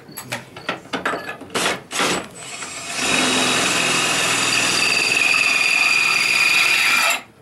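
An electric drill runs steadily for about four seconds, starting about three seconds in, boring a nail hole through a roofing slate, then cuts off suddenly. Before it, a few sharp knocks of slate being handled.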